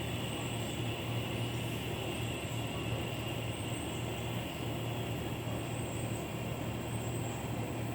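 Cicadas singing in a steady, high, unbroken drone, over a steady low rumble.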